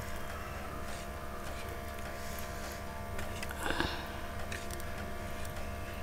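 Steady hum of a machine running nearby: a low drone with several steady tones held over it, unchanging throughout. A brief faint sound comes a little before four seconds in.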